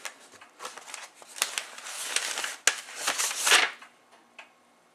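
Paper and packaging rustling and crinkling as they are handled, in irregular bursts, the loudest about three and a half seconds in, then stopping near the end.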